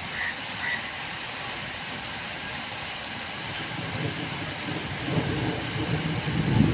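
Heavy rain falling steadily. A low rumble of thunder builds over the last couple of seconds and is loudest near the end.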